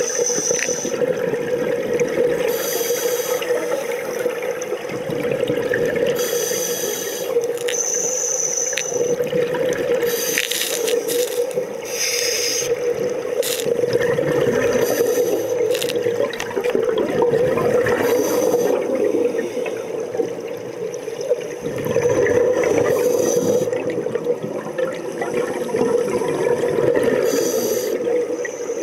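Scuba breathing through a regulator underwater: a hissing, bubbling breath every few seconds, over a steady low hum.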